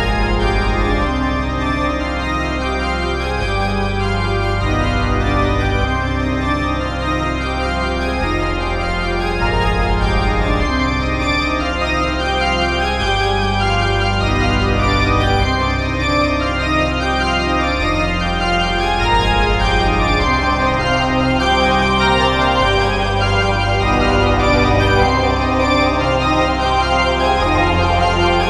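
Background organ music, a toccata: full sustained chords over long held bass notes that change every couple of seconds.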